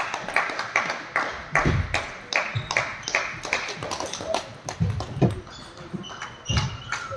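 Quick, sharp clicks of a ball being struck and bouncing in a racket-sport match, several a second, with a few low thuds among them.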